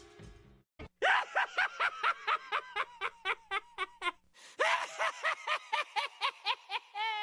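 A high-pitched, maniacal cackling laugh: two runs of rapid "ha-ha-ha" beats, about four or five a second, with a short break about four seconds in.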